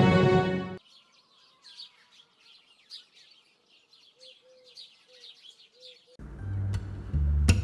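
Faint birds chirping and twittering in short, high calls, after the intro music cuts off under a second in; music with a deep bass line comes back in about six seconds in.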